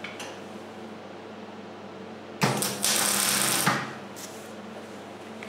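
A single welding tack on the steel frame: the arc crackles and buzzes for just over a second, starting and stopping sharply, over a steady low shop hum.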